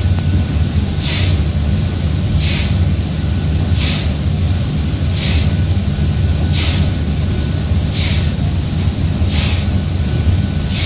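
A paddle steamer's steam engine running at a slow, even pace. A steady low rumble is broken by a hiss about every second and a half, keeping time with the turning crankshaft.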